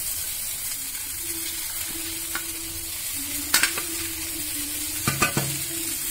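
Sizzling in a frying pan as soaked poha (flattened rice) is tipped in from a steel plate and scraped off by hand. A few sharp clinks about three and a half seconds in and again around five seconds, from the steel plate knocking against the pan.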